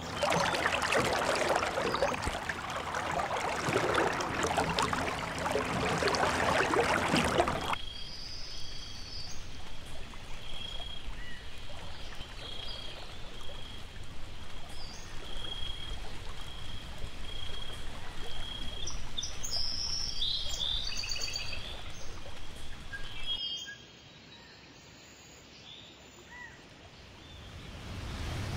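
Water-and-nature ambience: dense running or lapping water for the first several seconds, cutting off abruptly. Then a quieter outdoor hiss with repeated high bird chirps, a short dip in level, and the noise rising again near the end.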